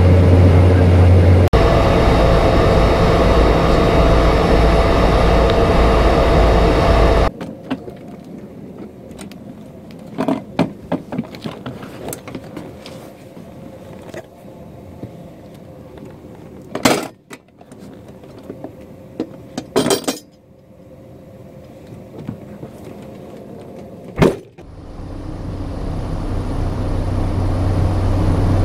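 Loud steady drone of a Cessna 208 Caravan's turboprop heard in the cockpit, which cuts out after about seven seconds. Then a quieter stretch of clicks, rattles and several sharp knocks from handling at the aircraft's cabin door on the ground. Near the end, the engine sound builds up and grows steadily louder as power comes up for takeoff.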